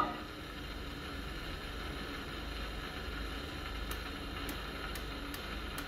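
Gramophone needle running on in the grooves of a 78 rpm record after the song has ended: steady surface hiss with a low rumble, and faint ticks in the last couple of seconds.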